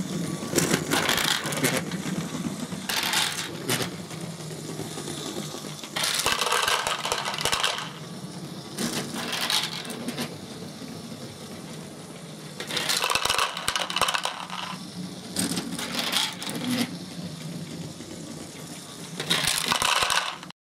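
LEGO Great Ball Contraption train module running: small plastic LEGO balls clatter and rattle over plastic LEGO parts in repeated bursts, over the steady whir of a LEGO electric motor.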